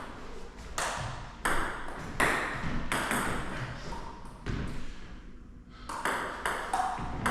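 A table tennis rally: the ball is struck and bounces again and again, in sharp pings about every half-second to second, with a short pause about five seconds in before play resumes.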